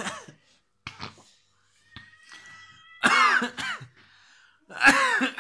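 A young man coughing hard in a few separate harsh bursts, the last two the loudest, from the burn of a hot chili he has just swallowed.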